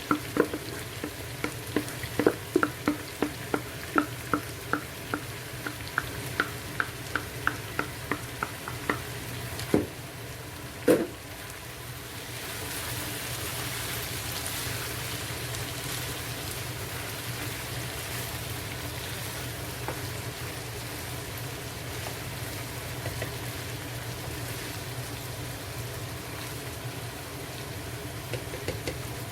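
Chicken pieces frying in a pot for brown stew chicken, stirred with a spoon that knocks against the pot's side about two to three times a second for the first ten seconds. Two heavier knocks follow, then a steady sizzle.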